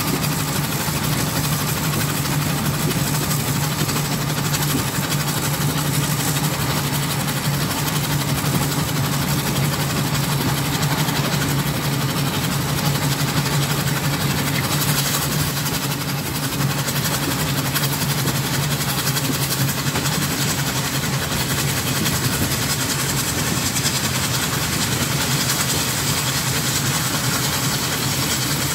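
Burrell steam traction engine running steadily as it travels along the road, heard close up from on board: a continuous mechanical running noise with no pauses or changes.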